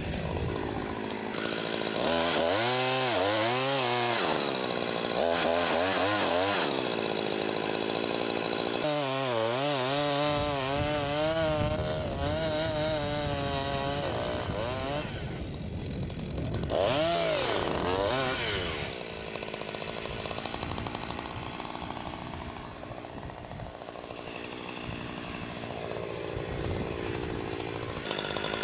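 Chainsaw engine running and revving up and down, its pitch rising and falling over and over as it cuts into a tree; it runs quieter for the last third.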